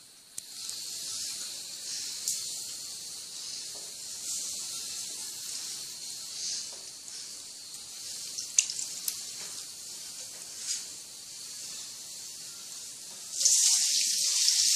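Water hissing steadily into the tub of an Electrolux Turbo Economia 10 kg (LTD11) washing machine as it fills, with a few faint clicks. The hiss starts about half a second in and grows louder near the end.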